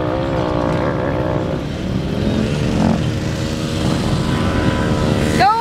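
Dirt-bike engine running steadily at idle, with a slightly wavering pitch. Just before the end, a loud, high pitched sound cuts in over it.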